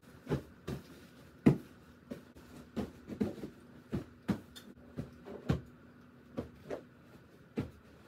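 Pillows being fluffed, shaken and set down on a bed: a string of soft thumps with fabric rustle, the loudest about a second and a half in, over a faint steady hum.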